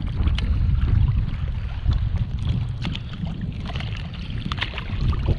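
Gusty wind buffeting the microphone, with scattered small splashes of choppy water.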